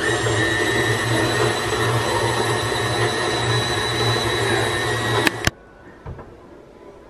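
KitchenAid Artisan stand mixer running steadily, its flat beater churning thick cookie dough in a ceramic bowl: a steady motor hum with a high whine. It cuts off abruptly with a click about five and a half seconds in.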